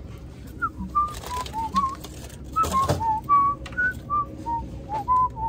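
A man whistling a tune to himself: a string of about fifteen short, clear notes that hop up and down in pitch.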